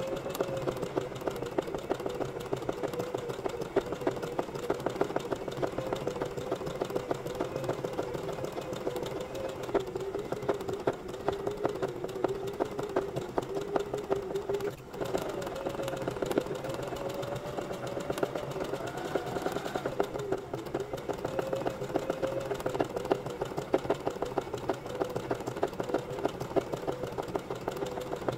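Domestic sewing machine stitching a zigzag for free-motion embroidery: rapid needle clicks over a motor whine that wavers in pitch as the speed changes, with a momentary break about halfway.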